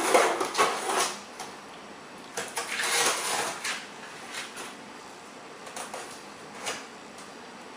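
Packing tape on a cardboard shipping box being cut open: scratchy scraping and tearing in bursts, the longest a little past the middle, with a few light knocks and clicks.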